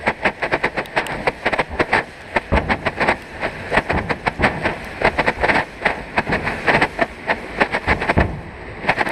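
Firework going off at close range: a rapid, uneven string of loud pops and crackles, several a second, that dies away near the end with one last crack.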